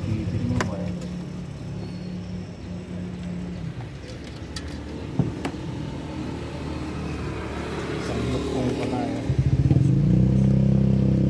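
A motor vehicle's engine running steadily. It fades away after about four seconds and comes back louder for the last two seconds, with a few light clicks in between.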